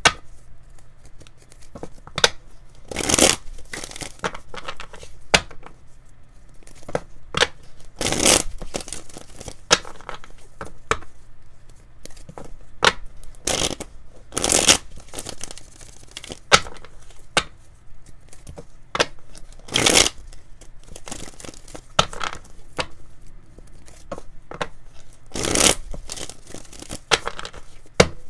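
A tarot deck being shuffled by hand: the cards rustle and slap together in irregular bursts, with a louder rush about every five or six seconds.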